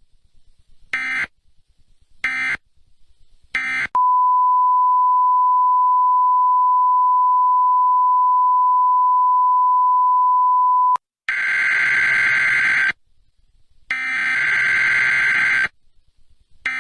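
Emergency Alert System digital data tones: three short bursts of harsh buzzing data about a second apart, the end-of-message code. A steady pure tone of about 1 kHz then sounds for about seven seconds and cuts off, followed by two longer bursts of the same data buzz that begin a new alert's header.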